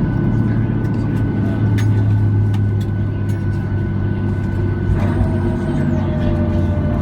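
Jet airliner cabin noise after landing: a steady low engine drone with a few held tones, as the plane rolls on the ground. A new steady tone joins about five seconds in.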